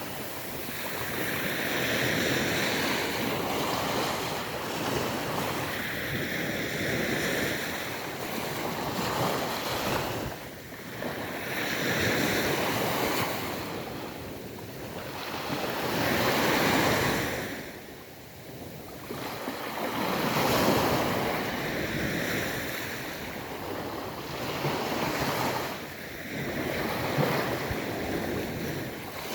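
Ocean waves breaking and washing up a beach, surging and receding in a steady cycle about every four to five seconds, with some wind.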